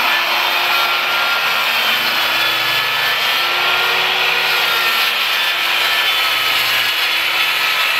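Corded DeWalt circular saw running steadily under load as it cuts along an angled line through a sheet of OSB, its motor keeping a steady whine.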